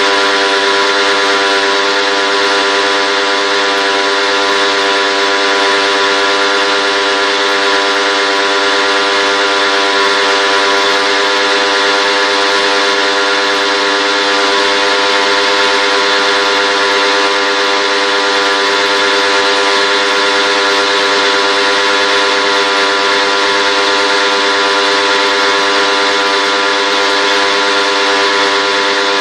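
A motor running steadily at a constant pitch under a loud, even hiss, with no change in speed.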